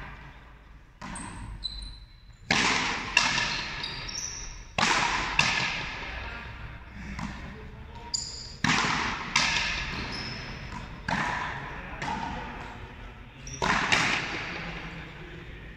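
A frontenis rally: the rubber ball cracking off the players' rackets and slapping the front wall, a sharp hit every second or so, each one echoing through the large hall.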